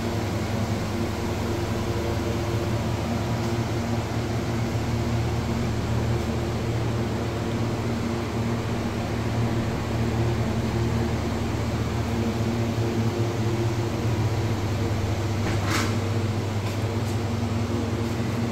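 Blue Star cold-room evaporator unit running, its two fans giving a steady low hum. A brief sharp clatter near the end.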